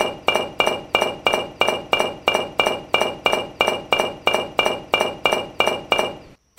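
A fast, perfectly even run of glassy clinks, about three a second, each with a short bright ring, identical from stroke to stroke like a looped sound effect; it stops abruptly near the end.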